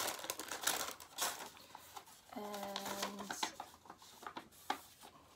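Paper and packaging rustling and clicking as small boxed items are handled, with a short steady hum about halfway through.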